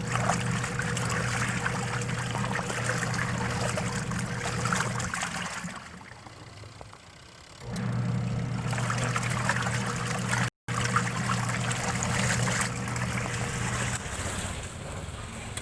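Washing machine running with water in the tub: a steady electric motor hum under sloshing water. The motor and water noise die away for about two seconds midway, then start again.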